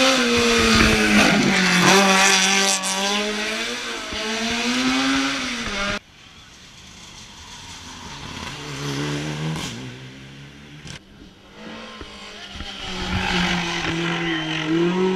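Hillclimb race car engines revving hard, the pitch rising and dropping through gear changes. The first car is loud for about six seconds and then cuts off abruptly. A quieter car follows, then another engine grows louder near the end.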